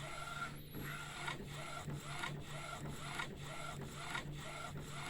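1390 UV printer running a test print, its mechanism repeating in a regular cycle about twice a second over a steady low hum.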